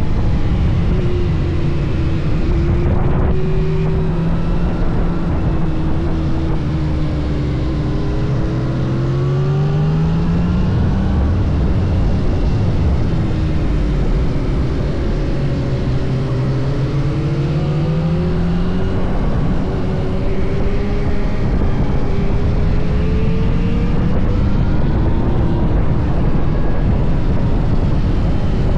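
Yamaha MT-09 SP's inline three-cylinder engine running hard under a dense rush of wind noise, its pitch climbing and falling several times as the bike accelerates and slows.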